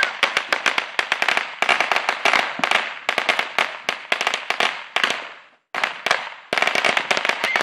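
Firecrackers going off in a rapid crackling string, many sharp pops a second, breaking off for a moment about five and a half seconds in before starting again.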